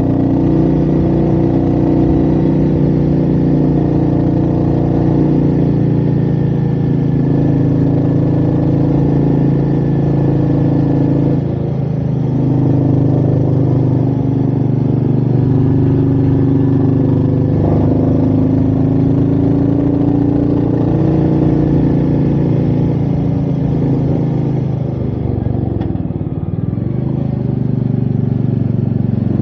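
Royal Enfield Meteor 350's single-cylinder engine running under way, with wind noise. The engine pitch dips and climbs again about a third of the way in, just past halfway, and again near the end.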